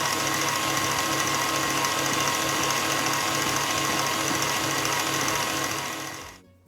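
Electric mixer motor running steadily at high speed, whipping cream with lemon curd into frosting in a bowl; it stops near the end.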